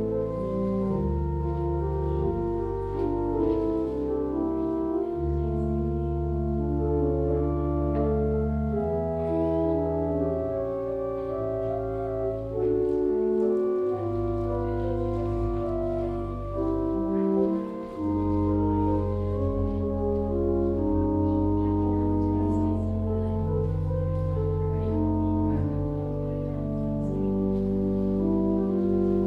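Church organ playing a slow piece of long held chords over sustained bass notes.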